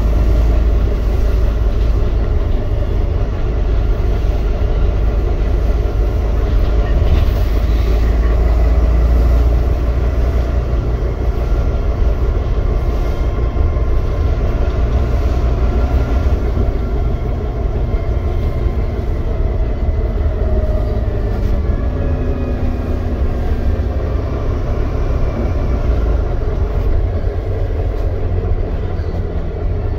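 Inside a moving Volvo B9TL Wright Gemini double-decker bus: the steady low rumble of its six-cylinder diesel engine and running gear, mixed with road noise.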